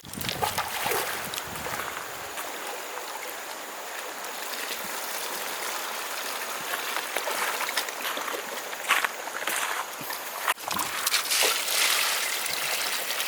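Shallow river water splashing and sloshing as someone wades and works it by hand, with a few sharp slaps in the second half.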